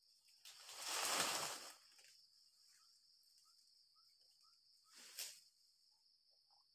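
Loud rustling swish of oil palm fronds being handled and dragged, about a second and a half long, with a shorter rustle near the end. Insects keep up a steady high-pitched drone underneath, with a few faint chirps.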